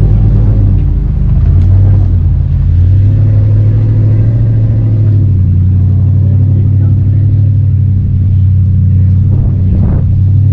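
An engine running steadily with a low, even hum, dipping briefly and picking up again between one and two seconds in.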